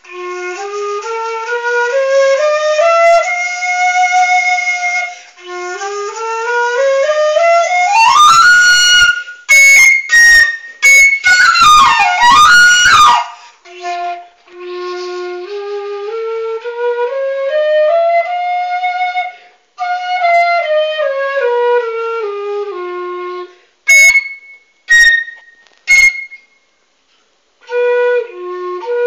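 A low F bamboo transverse flute (sáo trúc, about 80 cm long) being test-played across its range: slow rising and falling stepwise scales, with loud, shrill high notes and quick upward slides partway through, and a few short sharp high notes near the end.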